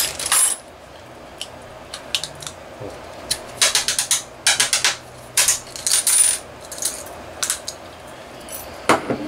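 Small metal tools clinking and rattling as they are rummaged through, in scattered sharp clicks that come thickest in the middle.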